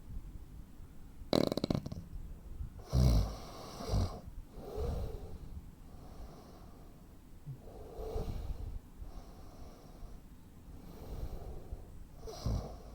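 Heavy snoring of a man with sleep apnea. A loud fluttering snort comes about a second in, then a run of snores, the loudest near three and four seconds in and again near the end.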